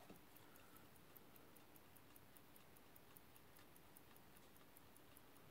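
Near silence with the faint, rapid ticking of a running mechanical watch, about five ticks a second.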